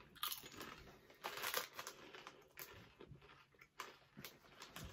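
A person biting into and chewing Lay's Campesinos potato crisps with their mouth closed: several sharp crunches at irregular intervals.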